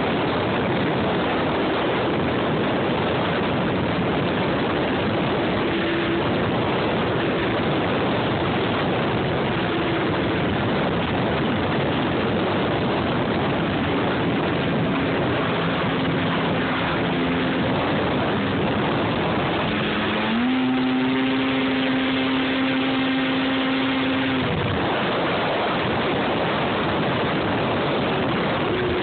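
Snowmobile under way: its engine and track make a steady loud rushing noise, with wind on the microphone. About twenty seconds in the engine note rises a step and holds clearly for a few seconds before sinking back into the rush.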